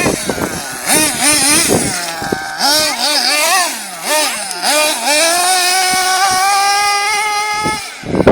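A 1/8-scale nitro RC buggy's small engine revving, its pitch rising and falling with the throttle, then climbing and holding at high revs for about three seconds before it drops off suddenly near the end.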